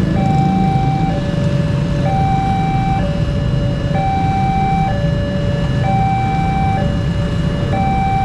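Railway level-crossing warning alarm sounding as the barrier comes down to signal an approaching train. It is an electronic two-tone alarm, alternating high and low about once a second, over the low running of motorcycle engines at the crossing.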